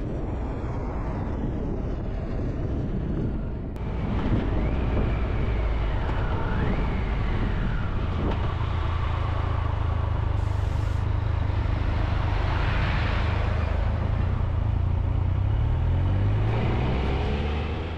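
Motorcycle engine running under the rider's wind and road noise as the bike rolls through a junction and a roundabout, the engine note rising near the end as it pulls away. A thin whistling whine rises and falls for a few seconds near the start.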